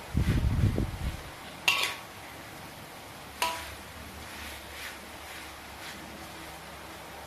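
A metal spoon stirring thick fried beef lung in sambal in a metal wok. A brief low scraping rumble comes in the first second, then two sharp, ringing clinks of the spoon against the wok about two seconds apart.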